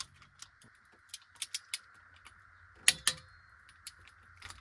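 Hand wrench clicking and clinking on the exhaust manifold bolts of a Cummins ISX as they are snugged down: a string of sharp, irregular metal clicks with one louder clank about three seconds in.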